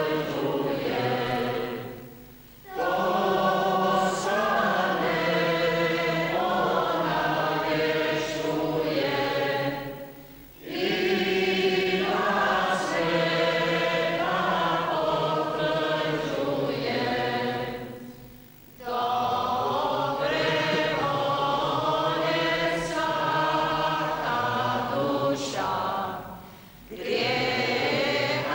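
Church congregation of men and women singing a hymn together, in long phrases broken by short pauses for breath about every eight seconds.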